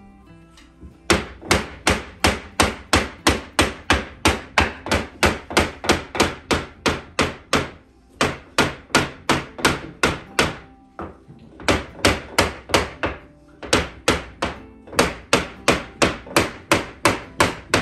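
Wooden block being knocked repeatedly against a large-format porcelain wall panel, about three sharp knocks a second, to bed the panel into its adhesive. The knocks start about a second in and stop briefly a few times.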